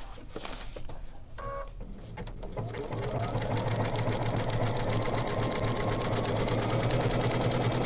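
Sewing machine stitching a stretch zigzag (lightning) stitch around the edge of a fabric appliqué. It starts slowly and picks up speed about two to three seconds in, then runs steadily with a rapid, even needle rhythm.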